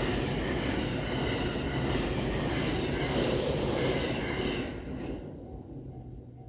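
A limited express electric train passing at speed over a level crossing: a loud steady rush of wheels on rail and running gear that falls away about five seconds in as the train clears. After that the crossing bell is heard ringing faintly, about twice a second.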